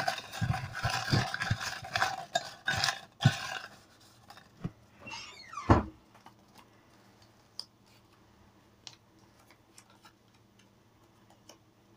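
Hands rummaging through and handling draw lots: a run of small clatters and rustles, then a louder scrape ending in a thump about halfway through, followed by only faint ticks.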